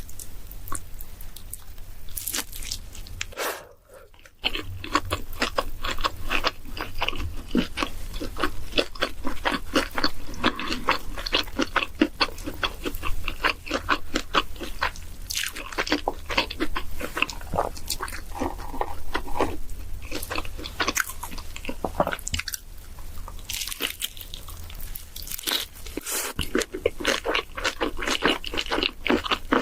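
Close-miked chewing with crisp crunching, a person eating with fast, dense bites and chews, interrupted by a brief lull about four seconds in.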